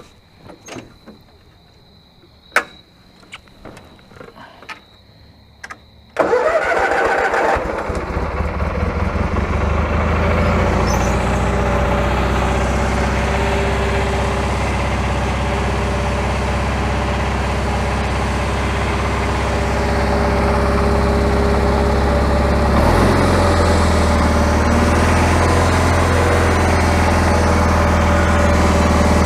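A few sharp clicks and knocks, then about six seconds in the Cub Cadet 1862's Kohler Magnum 18 twin-cylinder engine starts abruptly and runs steadily. Its note shifts slightly later on.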